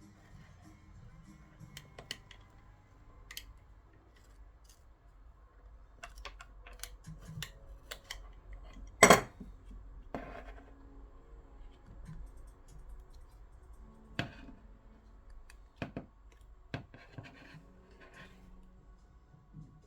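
Small tools working on the plastic and metal parts of a Harman Kardon Esquire Mini speaker being taken apart, with scattered clicks and short scrapes. There is one loud sharp snap about nine seconds in, and a few more clicks near the end.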